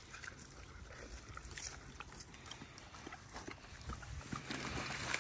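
Pot-bellied pigs eating scattered produce, with faint, irregular crunching and chomping sounds. Near the end a plastic bag of fruit and greens rustles as a hand rummages in it.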